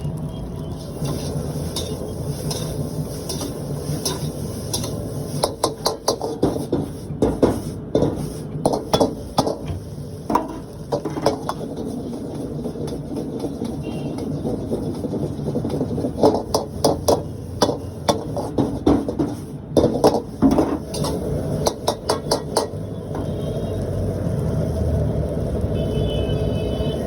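Metal spatula clanging rapidly against a wok as hakka noodles are stir-fried and tossed, in two bouts of quick strikes over a steady background rumble.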